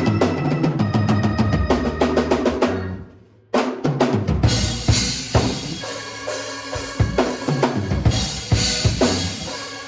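Drum kit played in a live jam, with bass drum, snare and rimshots over sustained pitched notes from other instruments. About three seconds in everything stops for a moment, then a quick run of drum hits brings the groove back in.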